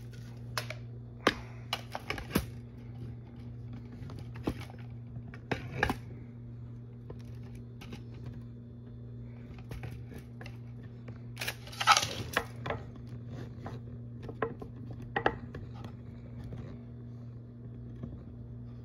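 Scattered clicks and taps of sculpting tools and hands working polymer clay on a work surface, with a louder clattering rustle about twelve seconds in, over a steady low hum.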